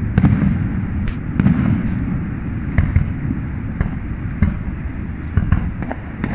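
Fireworks display: irregular bangs and crackles, several each second, over a dense steady low rumble.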